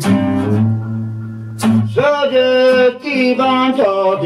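Acoustic guitar strummed with a man singing along, a song performed live; chords struck near the start and again about a second and a half in, with sung notes held between them.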